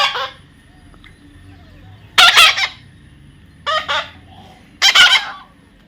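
A parrot squawking: loud, harsh calls, three of them a second or so apart after the tail of one right at the start.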